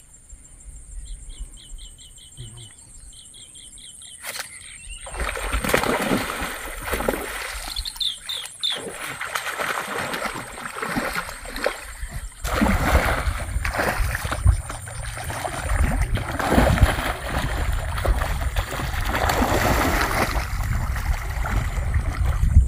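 A hooked rohu splashing and thrashing in shallow water while it is fought on rod and reel, the splashing starting about four seconds in and going on in rough surges. Before that it is fairly quiet, with a short run of high chirps.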